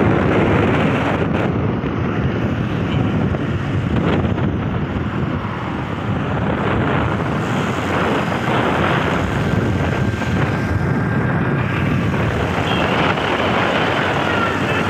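Steady wind rush over the microphone of a moving motorbike, with the bike's engine and road noise underneath.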